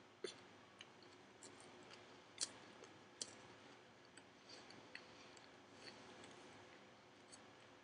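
Raw spinach leaves being chewed: faint, scattered crisp clicks and crackles, the loudest few in the first three seconds.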